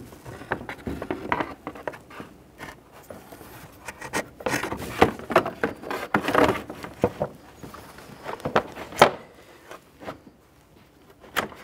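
Plastic radiator fan shroud for a Chevrolet Trailblazer being slid down into place in front of the radiator, scraping and knocking against it and the engine-bay parts in a string of uneven rustles and taps.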